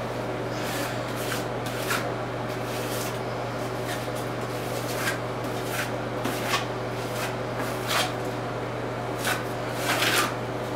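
Short rubbing, swishing strokes as wet RedGard waterproofing membrane is spread and smoothed over fiberglass mesh tape in a shower corner. There are about a dozen strokes at uneven intervals, the loudest bunched together near the end, over a steady low hum.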